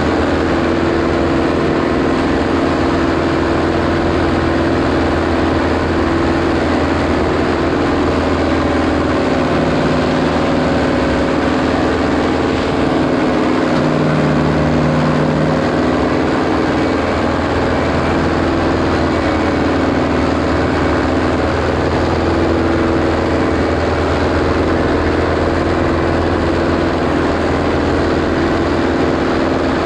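International Harvester 844 tractor engine running steadily under load, pulling a loaded 10-tonne trailer uphill. Its pitch wavers slightly around the middle.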